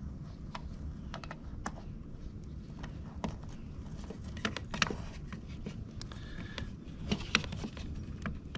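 Irregular light clicks and taps of a plastic brake-light housing and its wiring being handled and pressed into place on a fiberglass truck cap, with a few louder clicks around the middle and near the end.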